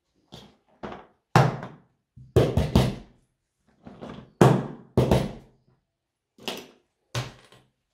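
Silicone pop-it fidget toys being set down and shuffled on a tabletop: a dozen or so dull thuds and knocks at uneven intervals.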